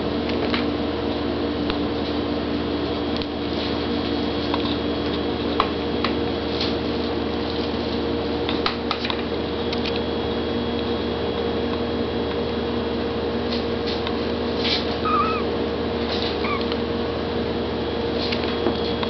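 A steady hum with soft clicks and rustles of a kitten being handled, and two faint, short kitten mews about fifteen seconds in.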